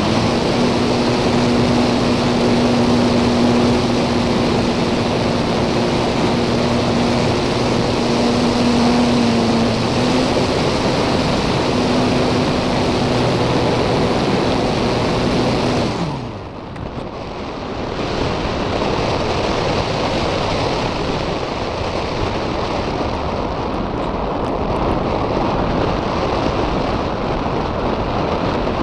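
Wind rushing hard over an on-board camera on a ParkZone Radian glider, with the glider's electric motor and propeller running as a steady hum that rises slightly in pitch about ten seconds in. About sixteen seconds in the motor cuts out, and only the wind noise of the glide remains.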